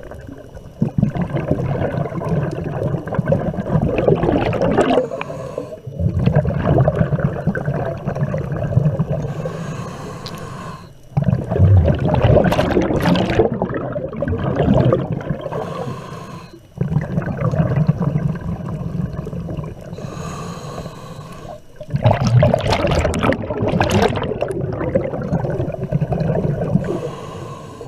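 A scuba diver breathing through a regulator underwater, about five slow breath cycles. Each breath is a rush of air through the regulator and a gurgling burst of exhaled bubbles.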